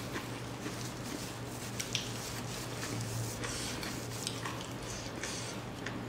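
Small eating sounds: soft scattered clicks of fingers picking crumbs off a wooden tray and the brief rustle of a paper tissue wiped across the mouth, over a steady low hum.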